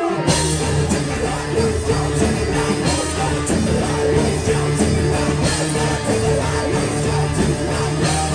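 A rock band playing live, with distorted electric guitars, bass, drums and vocals. The full band comes back in at once right at the start, after a brief thinner break.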